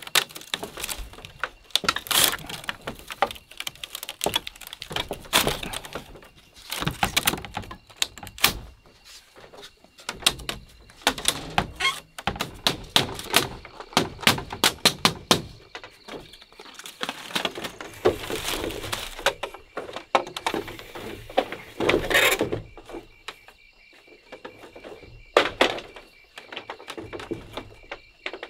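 Irregular thunks, knocks and cracks of bamboo being chopped and fitted by hand with a knife, in clusters of strokes with short pauses between.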